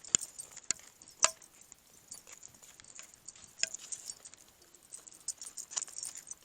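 Footsteps on pavement: scattered sharp clicks and taps at an uneven pace, the loudest two within the first second and a half, with a quieter stretch in the middle.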